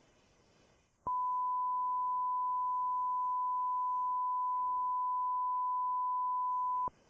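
A single steady electronic beep tone at one fixed high pitch, starting about a second in and holding unchanged for about six seconds before cutting off.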